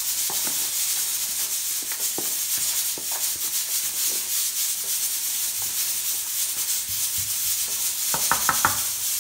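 Metal spoon stirring and scraping dry seasoned flour in a plastic tub: a steady gritty rustle with faint scrapes, and a quick run of light clicks near the end.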